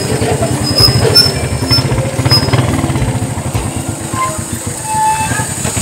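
Small single-cylinder motorcycle engine of a tricycle (motorcycle with sidecar) running at low speed with a rapid, even chug, heard from the sidecar.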